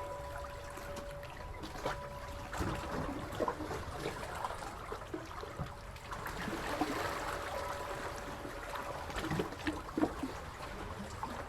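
Seawater trickling and lapping, with many small irregular splashes and drips.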